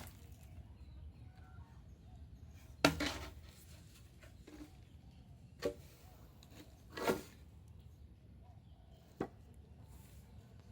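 A few separate knocks of wood and a hand saw being handled and set up for a cut, with quiet between them. The loudest knock is about three seconds in, and three more follow at intervals of a couple of seconds. No sawing strokes are heard.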